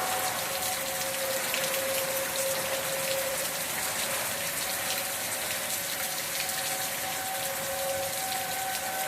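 Steady rain hissing and spattering, with an outdoor tornado warning siren holding a steady tone through it.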